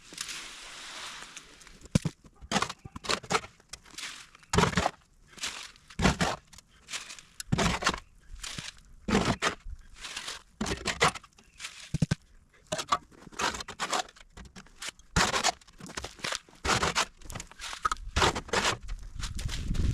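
A hand tool scraping and crunching through gritty material, as in working concrete mix, in short irregular strokes about once or twice a second.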